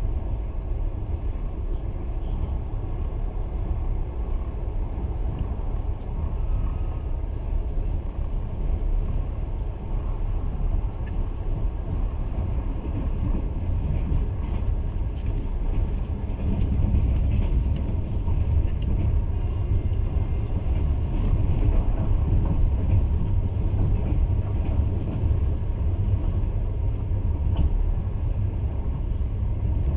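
Steady low rumble of a passenger train running along the rails, heard from inside the carriage, growing a little louder about halfway through.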